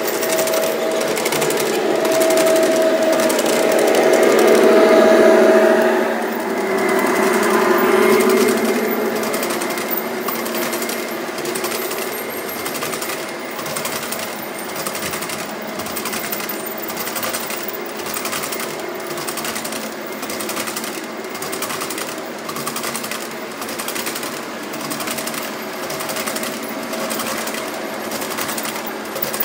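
Large-scale model train hopper cars rolling by on brass track, their wheels clicking over the rail joints in a steady rhythmic clatter. The first six seconds or so are louder, with a humming tone over the clatter.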